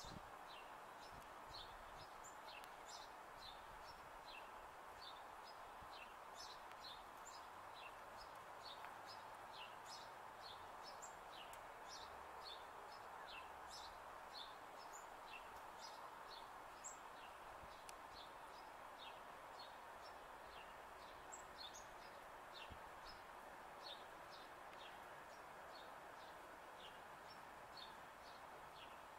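Faint outdoor ambience: small birds chirping, short high chirps about two a second, over a steady low background hiss.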